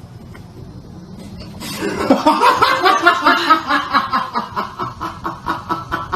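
A person laughing hard in a long run of quick repeated bursts, about four a second, setting in a little under two seconds in over a low, steady background.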